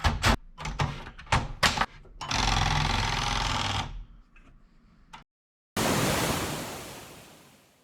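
Manual typewriter keys clacking in a quick, irregular run, followed by about a second and a half of steady mechanical sound. After a short dead gap, a loud noisy crash fades out over about two seconds.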